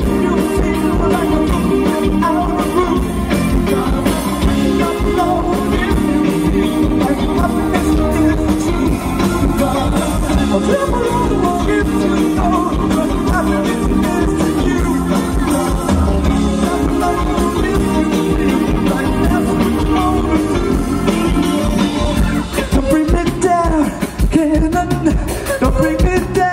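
A live rock band playing loudly through a PA, with drums and electric guitar, while a male singer sings over it.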